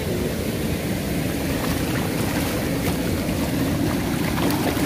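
Steady rushing rumble of water pouring over a low weir into a shallow pool.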